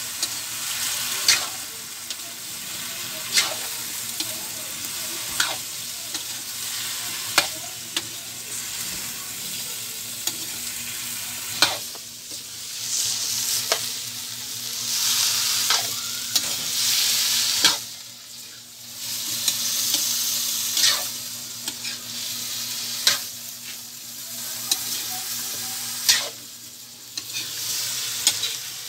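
Sliced bottle gourd with sardines sizzling in a metal wok while a metal ladle stirs it, the ladle clinking against the pan about every two seconds. The sizzle swells louder for a few seconds at a time.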